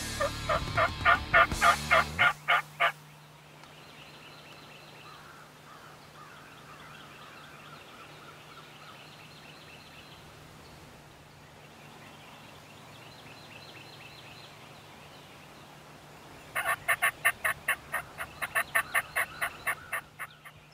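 Wild turkey gobblers gobbling: a loud, rapid rattling gobble in the first few seconds, then more gobbling near the end. Between them, faint songbird chirps over a low steady hum.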